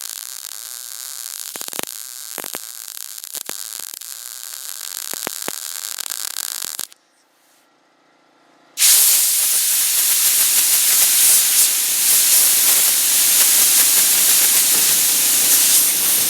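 Wire-feed (MIG) welder arc running on thin sheet-metal hood, welding up pinholes: a first bead of steady hiss with scattered crackles, a stop of about two seconds, then a longer, louder bead.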